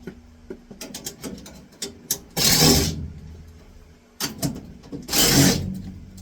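Old furnace's metal vent pipe being worked loose and pulled out: two loud half-second bursts of metal scraping and rattling, with scattered clicks and knocks between them.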